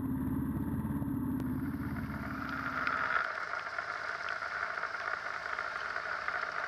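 Motorcycle engine idling with an even low throb. About three seconds in, the throb drops away to a quieter, higher-pitched engine and road sound.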